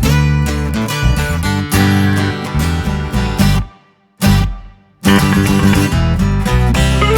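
Background music led by strummed acoustic guitar with a steady beat. It drops out briefly a little over halfway through, with one short note in the gap, then comes back.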